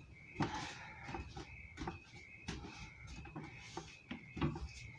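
Light knocks and rustling of small items being handled and set down, several short clicks spread through a quiet room.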